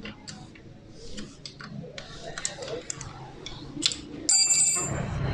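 Light metal clicks and taps of spanners working the 10 mm nut and bolt on a Honda CG125's front drum-brake arm as it is loosened. About four seconds in comes a loud metal clink that rings briefly.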